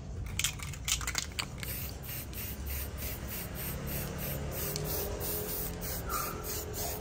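Aerosol spray-paint can hissing as paint is sprayed onto a brush cutter's metal drive shaft, the hiss pulsing evenly. A few sharp clicks come in the first second or so.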